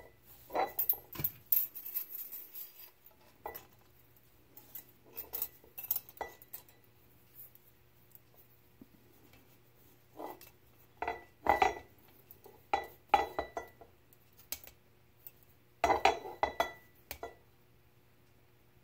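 Long steel feeler gauge blades clinking and scraping against the aluminium case and rotors of a 6-71 Roots blower as they are slid in to measure rotor-tip-to-case-wall side clearance. The sound comes in irregular clusters of light metallic clicks and taps, a few ringing briefly, with quiet stretches between.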